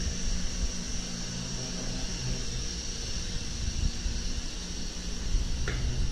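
The train's locomotive idling, a steady low rumble with an even hum, under a steady high hiss. A small knock sounds near the end.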